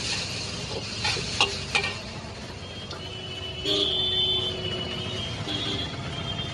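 Noodles sizzling in a hot wok while a steel ladle stirs them, with two sharp ladle clangs against the wok about a second and a half in. The sizzle goes on once the stirring stops, and a steady high tone sounds in the background from a little past halfway.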